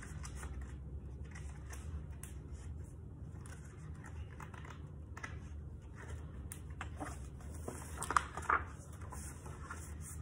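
Quiet room tone with a steady low hum; about seven seconds in, a few soft rustles and taps as a picture book is handled and opened.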